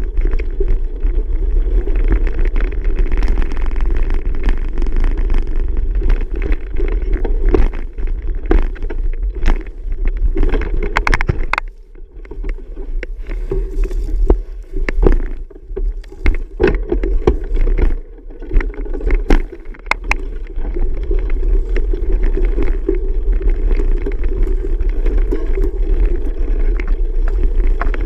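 A bicycle being ridden, heard close to the bike: a steady rumble of rolling and air noise with scattered clicks and rattles. The rumble eases for several seconds around the middle, with a few louder knocks, then picks back up.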